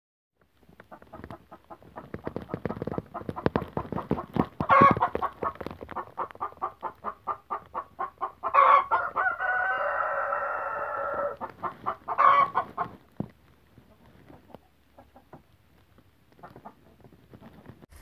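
Chickens clucking in a fast run of short clucks, several a second, that grows louder. About halfway through comes one long drawn-out call, followed shortly after by a sharp squawk, and then the clucking fades away.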